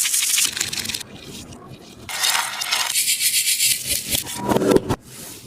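A tape-and-plastic taba squishy being squeezed and crumpled by hand, giving crackly crinkling in bursts with a short lull about a second in, and lower scrunching and rubbing toward the end.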